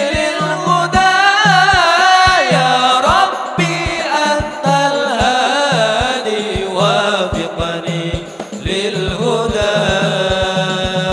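Sholawat sung in Arabic with ornamented, gliding melodic runs, over an ensemble of rebana hadrah frame drums beating a steady interlocking rhythm with deep bass strokes.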